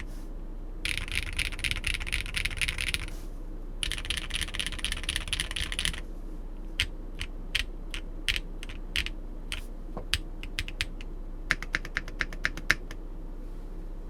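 RE65 Blood mechanical keyboard with lubed Holy Panda tactile switches on a brass plate being typed on: two fast runs of typing, then single keystrokes spaced out about two a second, then a short quick flurry that stops about a second before the end.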